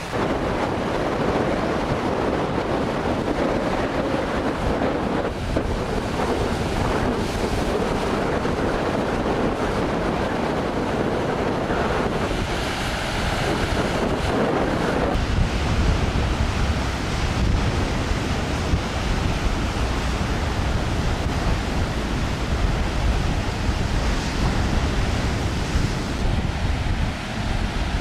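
Wind blowing hard across the microphone: a steady rushing noise with a low buffeting rumble that gets heavier about halfway through.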